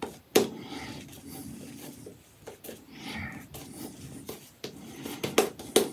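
Apshave Cashmere 28 mm shaving brush working shaving-soap lather on the face: soft, wet brushing strokes with a few sharp clicks, two of them near the end.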